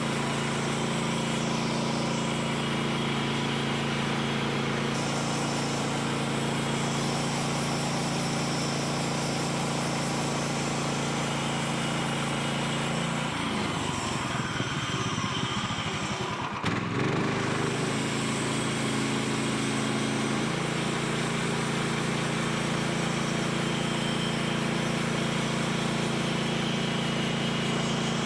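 Small gasoline engine of a portable bandsaw sawmill running steadily. Its note wavers and dips for a few seconds about halfway through, then settles back.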